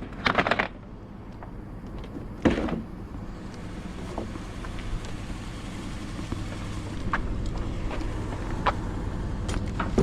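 Steady low vehicle engine and road rumble, with two short loud noises, one near the start and one about two and a half seconds in.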